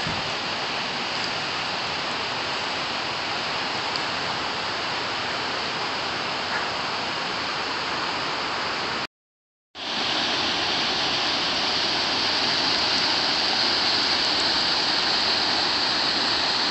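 Steady rushing of running water, like a waterfall or fast creek. It cuts out for under a second about nine seconds in, then comes back slightly louder.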